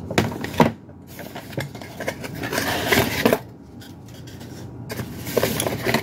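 Metallic anti-static bags crinkling and cardboard rustling as packaged items are lifted out of a box, with a few sharp clicks in the first second and a quieter spell in the middle.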